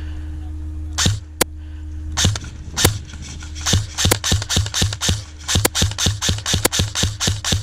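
Airsoft gun firing about twenty single shots, each a sharp crack with a low thump. The shots are spaced out at first and quicken to about three or four a second from about four seconds in, over a steady low hum.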